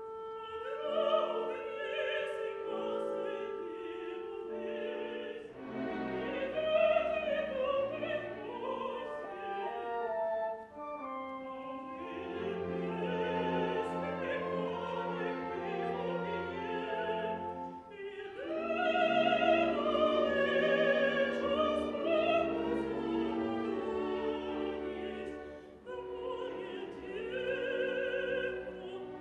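A woman's operatic voice singing an aria with wide vibrato, accompanied by a classical orchestra, in long phrases with brief breaks between them.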